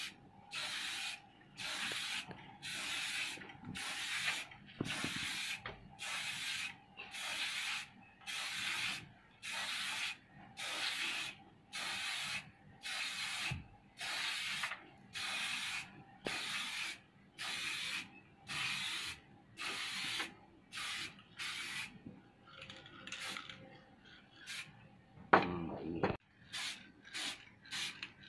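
Aerosol spray-paint can sprayed onto bamboo fan slats in short bursts, about one a second. Near the end the bursts come shorter and quicker, with one brief louder knock among them.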